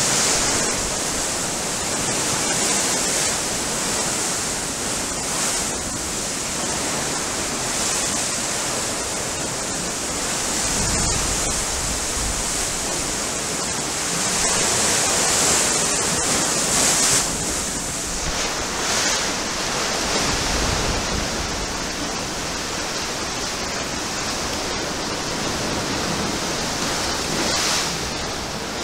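Shallow sea waves washing and breaking around the iron legs of a seaside pier, a steady rushing hiss. A few low buffets of wind hit the microphone partway through.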